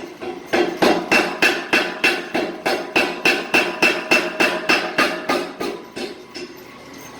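Hammer blows on hot steel over an anvil, about three strikes a second in a steady rhythm, each with a bright ringing tone from the anvil, as a taper is drawn out. The blows weaken and stop near the end.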